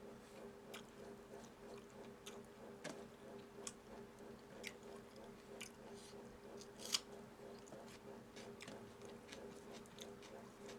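A person chewing and eating, with soft, scattered mouth clicks and smacks and one sharper click about seven seconds in. A steady low hum runs underneath.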